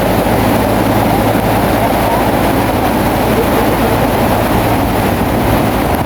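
Bulldozer's diesel engine running steadily, a low constant drone.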